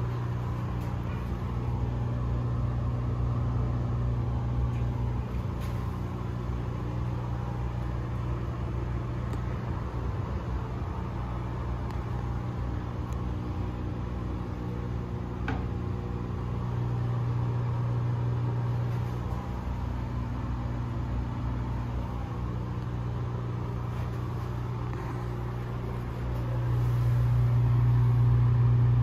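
Steady low mechanical hum with a light hiss, getting louder near the end. A faint click about halfway through, as the toilet seat is handled.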